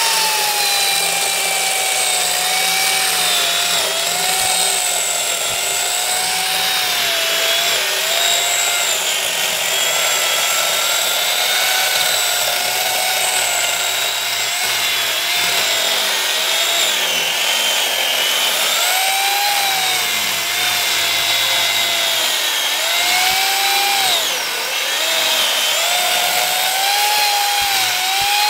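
Electric chainsaw cutting logs: a steady motor whine whose pitch sags and recovers several times as the chain bites into the wood, most deeply about 24 seconds in.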